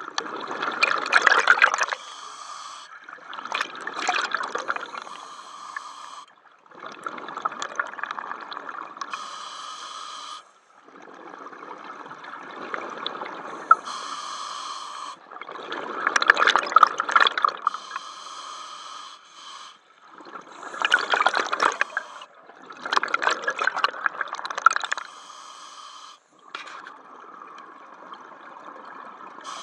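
Scuba diver breathing through a regulator underwater: a steady hiss on each inhale alternating with louder rushes of exhaled bubbles, one breath cycle every few seconds.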